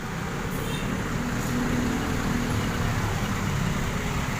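Diesel bus engine running with a steady low rumble, mixed with road traffic noise.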